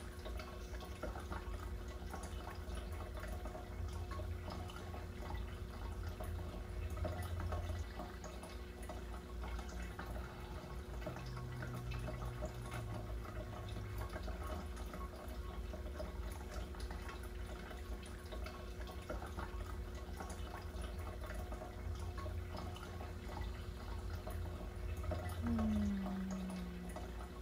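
Steady background of trickling, dripping water over a low hum, with a brief low falling tone near the end.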